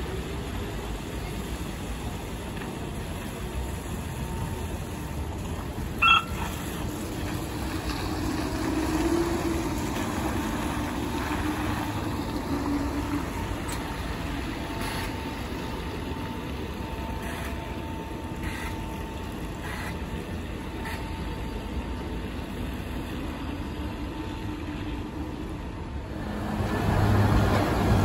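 City street traffic with an articulated bus passing close by on a wet road; its running noise swells about nine seconds in. A single sharp click-like sound comes about six seconds in, and the traffic grows louder near the end.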